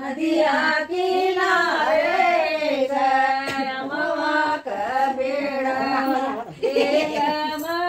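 Women singing a traditional North Indian wedding folk song (shadi ka geet), with long held notes that bend up and down.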